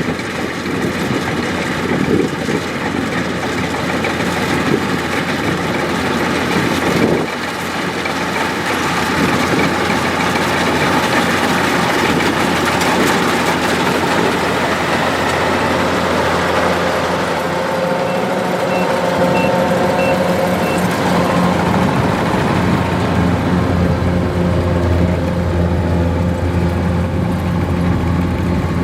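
Kubota DC-105X combine harvester running steadily, its engine and threshing machinery making a continuous mechanical din. A little past halfway the sound settles into a smoother, more even engine hum.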